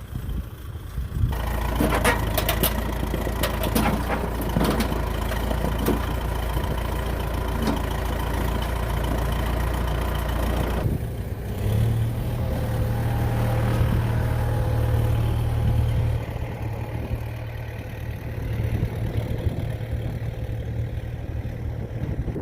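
Tractor engine running steadily at a low hum, with a few sharp clanks and knocks in the first few seconds. The engine sound changes abruptly about a second in and again about halfway through.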